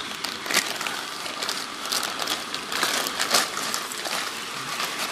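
Clear plastic packaging bags crinkling and rustling as plastic toy train cars are handled inside them, a run of irregular crackles.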